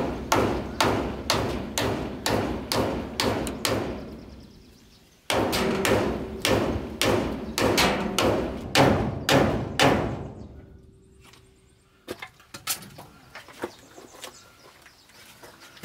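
Repeated blows of a hand tool striking wood, about two or three a second, in two runs of several seconds with a short pause between. A few scattered light knocks follow near the end.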